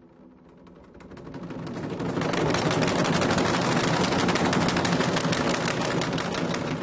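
Ensemble of Chinese red barrel drums (tanggu) struck with sticks in a very fast, dense roll that swells from soft to loud over the first couple of seconds, then holds loud and eases slightly near the end.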